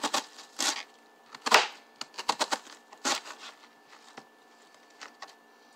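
Kitchen knife cutting an onion on a cutting board: a string of irregular sharp knocks as the blade strikes the board.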